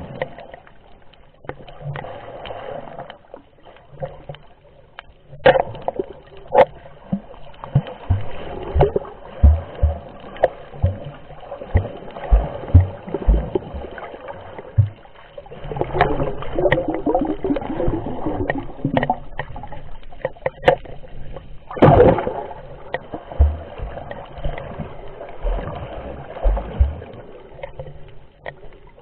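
Water moving around a snorkeller's underwater camera: muffled sloshing and gurgling, with irregular low thumps and sharp clicks as the swimmer moves.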